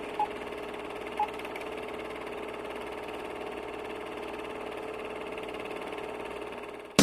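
A steady droning hum with a fast, fine pulsing texture, with two short high beeps about a second apart near the start.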